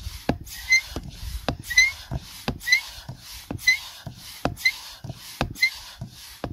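Manual hand pump inflating an inflatable paddleboard, worked at about two strokes a second: each stroke a rush of air with a short squeak. The board is still at low pressure, its gauge not yet up into the yellow.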